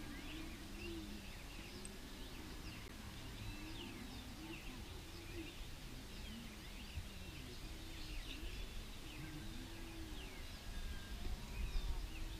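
Dawn chorus of many birds: overlapping short high chirps and calls, with lower rising-and-falling calls repeating beneath, over a steady background hiss.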